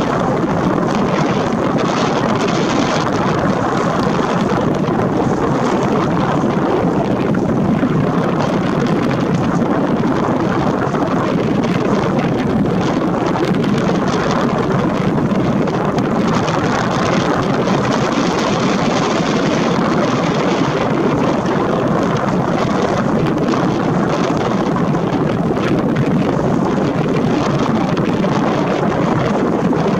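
Steady, loud wind rushing and buffeting a camera microphone that has no foam windscreen, swelling and easing a little at times.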